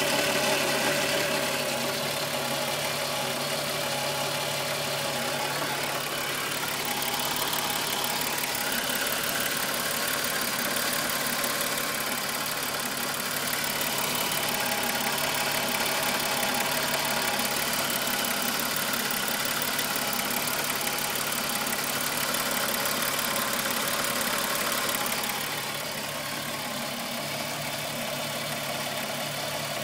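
Volkswagen Golf VR6 2.9 six-cylinder engine idling steadily, slightly quieter near the end. The owner hears a chain-like rubbing noise from it that grew louder after he replaced the upper hydraulic timing-chain tensioner.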